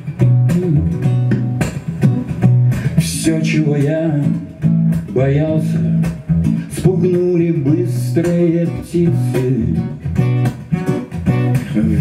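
Acoustic guitar playing a song with frequent plucked notes and strong bass notes, while a man sings over it.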